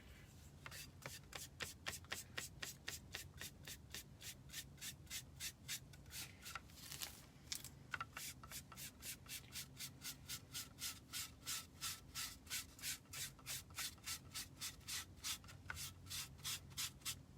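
Foam paint brush rubbing paint onto a craft pumpkin in quick repeated strokes, settling into a steady rhythm of about three strokes a second from about eight seconds in.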